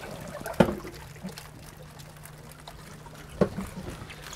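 Water pouring and trickling in a boat's live well crowded with baitfish, over a low steady hum, with two sharp knocks, one about half a second in and one near the end.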